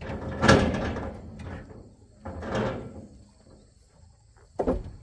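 Knocks and clatter of handled objects: a loud one that trails off over a second or so, a second smaller one, then a single sharp knock near the end.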